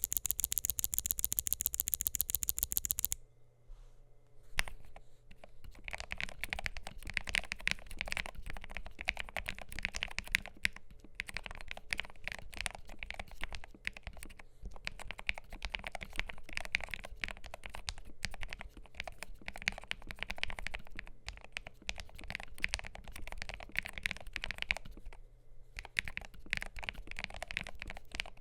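Typing on a modified MelGeek Made68 Pro magnetic keyboard with lubed Gateron KS-20 White switches, an aluminium plate and ABS double-shot keycaps: a steady, uneven run of keystrokes that begins about five seconds in and pauses briefly near the end. It opens with about three seconds of rapid, evenly spaced high ticks.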